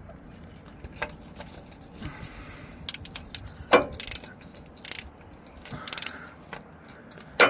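Scattered metallic clinks and rattles of a socket wrench against the oil pressure sensor, with a louder knock about halfway through and another near the end.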